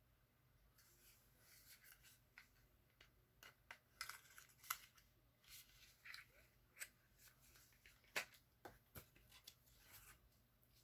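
Faint clicks and soft rustling of cosmetics packaging being handled, scattered irregularly.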